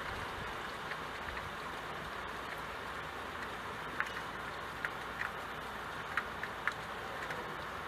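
Steady hiss of rain with scattered sharp ticks of single drops hitting window glass, most of them in the second half, over a low rumble.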